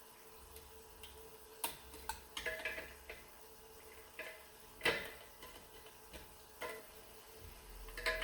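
A steel snap ring being worked into its groove over the compressed low/reverse piston return spring of a 4L60E automatic transmission: scattered, irregular sharp metal clicks and short scrapes, the loudest about five seconds in.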